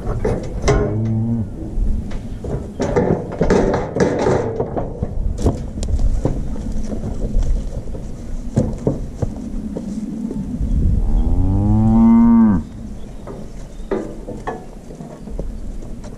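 A calf bawling: a short call about a second in, then one long call about eleven seconds in that rises and falls in pitch. Sharp knocks and rattles from the steel cattle chute come and go throughout.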